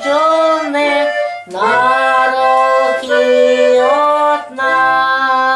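A woman singing a slow Ukrainian Christmas carol (koliadka) in long held notes, with short breaks between phrases about a second and a half in and again near the end.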